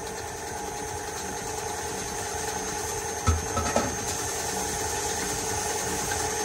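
KitchenAid Artisan stand mixer running steadily, its beater whipping butter, sugar and heavy cream in a steel bowl as the cream starts to thicken. Two brief knocks a little past halfway.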